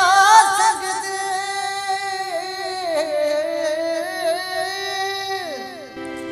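A singer holds one long sung note in a folk song, wavering and ornamented, which glides down and fades about five and a half seconds in; a steady accompaniment note carries on under it and after it.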